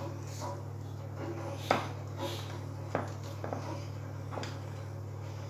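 A metal spoon clinking and scraping against a glass baking dish a few times as it digs into a soft cake, the sharpest clink about two seconds in, over a steady low hum.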